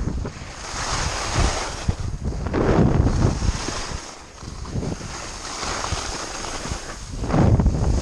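Skis scraping and carving over choppy packed snow, with wind rushing over the microphone; the noise swells in loud surges with each turn, strongest about three seconds in and again near the end.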